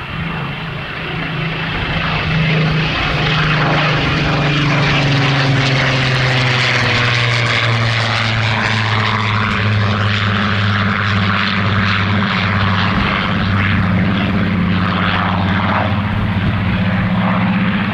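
Rolls-Royce Griffon V12 engine of a Spitfire flying past: a deep, steady engine drone with a broad rush above it. Its pitch falls over the first several seconds and then holds.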